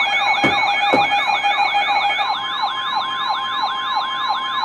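Electronic siren in a fast yelp: several layered rising-and-falling wails repeating about three times a second over steady tones, with two short thumps about half a second and a second in.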